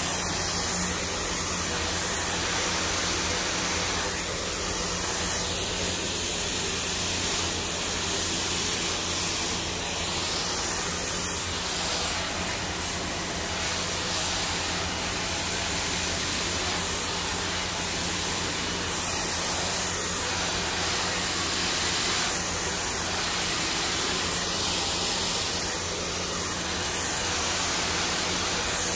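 Handheld hair dryer running steadily, a constant rush of air with a faint low motor hum, as it blow-dries hair straight over a round brush.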